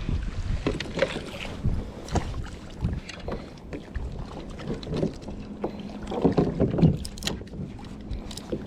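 Sounds aboard a sea kayak: water lapping and sloshing against the hull, with scattered knocks and clicks against the boat.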